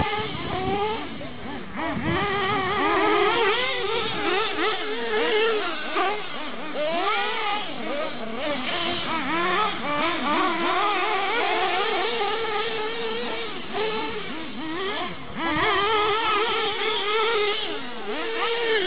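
Small nitro engines of radio-controlled off-road cars revving, their high-pitched whines rising and falling constantly as the cars accelerate and brake, more than one engine at a time.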